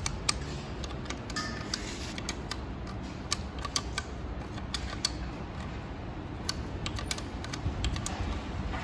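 Irregular light metal clicks and taps as a hand works at the hydraulic clutch release bearing and its fittings on a Maruti Brezza diesel's gearbox input shaft, over a low steady hum.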